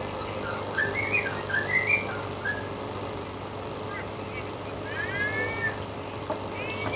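Bird calls: a cluster of short chirps about a second in, then a few longer arching calls later on, over a steady low background hum.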